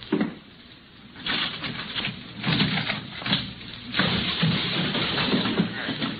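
Radio-drama sound effects of a violent struggle: a run of loud, irregular crashes and smashing noises mixed with low grunting from the creature, in a narrow-band old broadcast recording.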